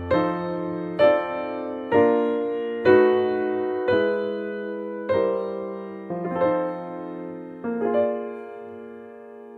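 Soft, slow piano music: chords struck about once a second, each ringing out and fading, with a longer held chord dying away near the end.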